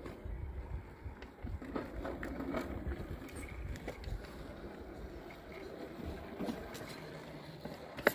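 Scale RC rock crawler's electric motor and gears whirring as it creeps over rock, with a few short clicks and scrapes of tyres and chassis on stone. A low wind rumble on the microphone runs underneath.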